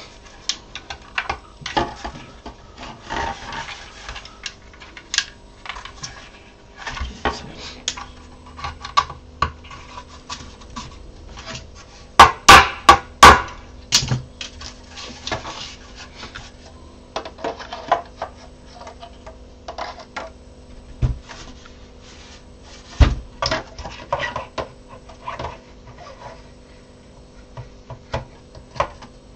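Irregular plastic clicks and knocks of 3D-printed parts being handled: printed dowels pushed into holes in printed plastic panels, and the panels moved and set on a metal bench. A run of sharp, loud clicks comes about halfway through.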